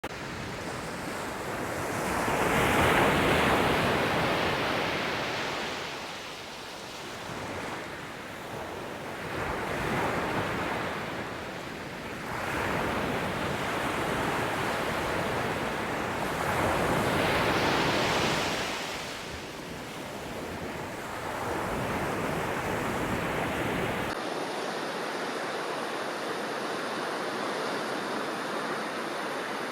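Sea waves breaking and washing in, each surge swelling loud and then fading, several seconds apart. Near the end the sound settles into a steady hiss without the low rumble.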